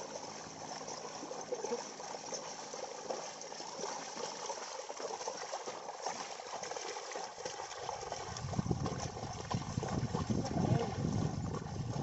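Oxen hooves splashing through a flooded paddy field as the pair drags a wooden plank leveller, with water and mud sloshing. The sloshing grows louder and deeper about eight seconds in.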